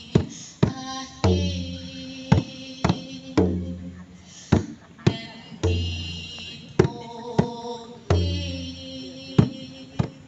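Rope-laced double-headed hand drum beaten by hand in a slow rhythm: a deep boom about every two seconds with sharper slaps in between.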